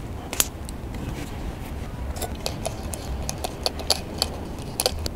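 Small metallic clicks and taps of hose fittings being handled and pushed onto a control cable's end. There is a sharp click about half a second in, then a scatter of quicker clicks over the last three seconds, over a low steady hum.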